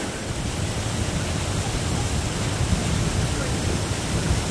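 River water rushing steadily over rocks: an even, fairly loud rush with a fluctuating low rumble underneath.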